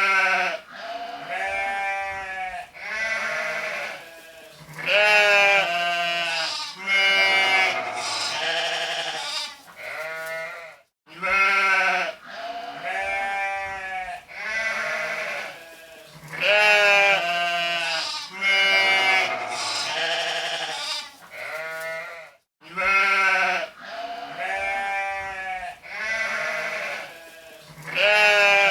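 Sheep bleating again and again, one quavering call after another about a second apart. The same run of calls repeats about every eleven seconds, as a looped recording.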